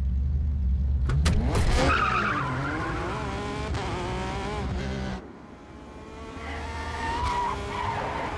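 Porsche 911 engine revving up with a rising note and accelerating hard, with tyre squeal as the wheels spin at the launch. About five seconds in the engine sound drops away suddenly, then comes back more faintly near the end.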